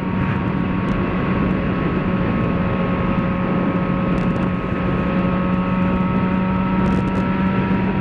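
Yamaha XJ6's inline-four engine running steadily at a cruise of about 100 km/h, with wind rushing past.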